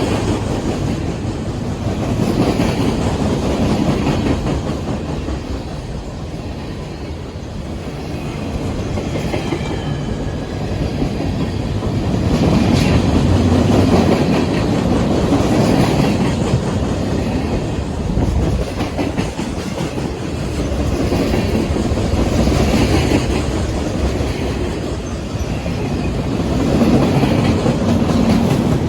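Freight cars of a manifest train rolling past: a steady rumble of steel wheels with clickety-clack over the rail joints, swelling and easing every few seconds as the cars go by.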